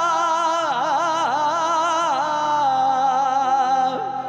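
Singing in Punjabi devotional folk style: one long held note with wavering, ornamented bends, then held steady over a sustained drone, fading away about four seconds in.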